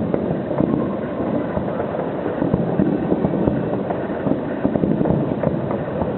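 Fireworks display: a dense, continuous run of bangs and crackles merging into a steady rumble, with wind noise on the microphone.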